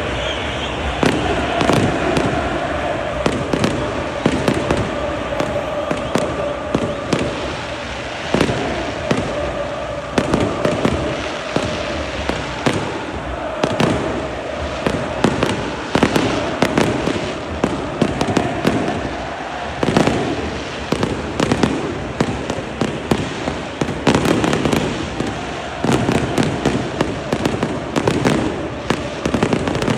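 Fireworks and firecrackers going off in rapid, irregular bangs and crackles throughout, over a stadium crowd singing in long, held notes.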